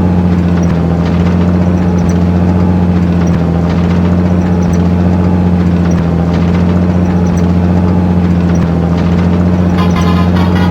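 Army truck engine running steadily at idle, an unbroken low drone.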